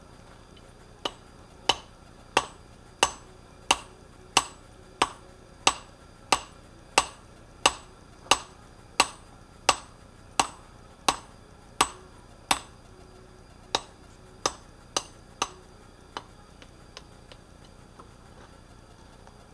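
Hand hammer striking a glowing steel billet for a Damascus blade on an anvil, a steady run of about eighteen ringing blows at roughly one and a half a second, then a short pause and five more blows, trailing off into a few light taps.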